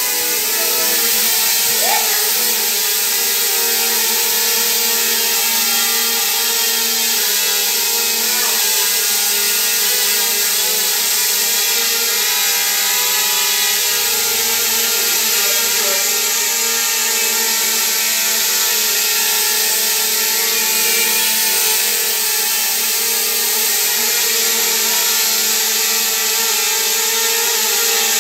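DJI Mavic Mini quadcopter hovering, its four small propellers giving a steady, high buzzing whine.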